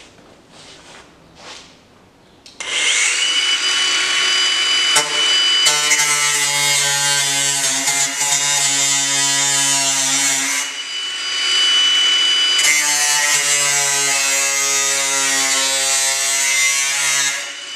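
Angle grinder switched on about two and a half seconds in, spinning up to a steady high whine, then grinding into the car's steel body panel with a heavier, rougher sound. It is lifted off briefly to the plain whine and put back to the metal, grinding until it is switched off just before the end.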